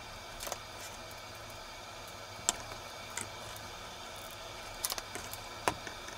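Hot glue gun and wooden cutout being handled: a few sharp clicks and taps, the loudest about two and a half seconds in and again near the end, over a steady low hum.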